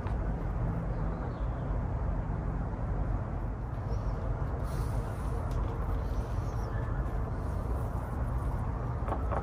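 Steady low outdoor background rumble, with a few faint, short bird chirps.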